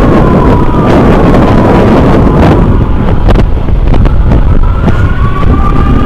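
Fire-engine-style emergency siren wailing slowly, its pitch falling over the first couple of seconds and rising again near the end, under heavy wind buffeting on the microphone of a moving motorbike.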